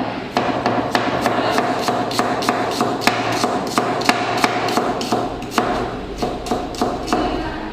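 Kitchen knife chopping an onion on a cutting board in a steady rhythm of about three strokes a second, over a steady hum.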